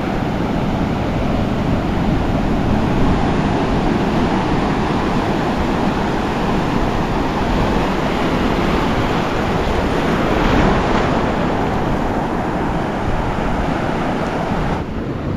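Ocean surf washing and breaking steadily around the wader, with a low rumble of wind on the microphone.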